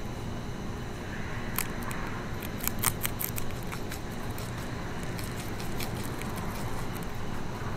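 Baby Eastern cottontail rabbit crunching celery leaves: crisp snapping bites, a quick run of them about two seconds in, then more scattered ones, over a steady low background hum.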